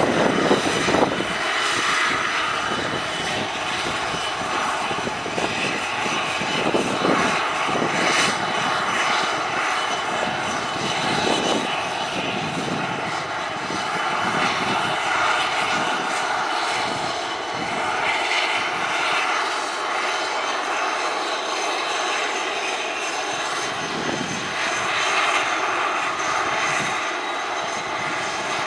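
ATR 72-600's two Pratt & Whitney PW127 turboprop engines running steadily at low power with propellers turning: a continuous whine over a rushing propeller roar.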